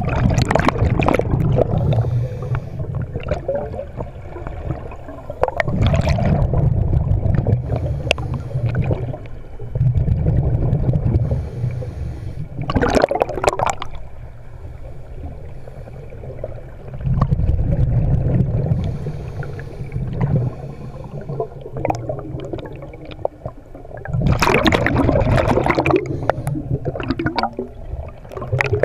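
Scuba diver breathing through a regulator underwater: each exhale is a rumble of bubbles lasting a couple of seconds, coming about every five to six seconds, with a sharper hiss of an inhale between some of them.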